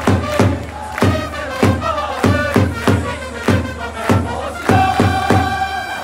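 Japanese baseball cheering section playing a fight song on trumpets and a drum, with the crowd chanting along. The drum beats two to three times a second, and a long held trumpet note comes near the end.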